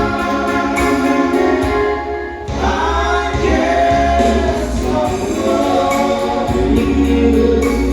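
Singing over an instrumental backing with a steady bass line, the voice holding and bending long notes, with a short break about two and a half seconds in.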